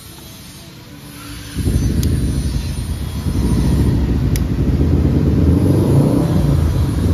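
Low rumble of a motor vehicle engine running close by. It comes in suddenly about a second and a half in, grows louder, then holds steady.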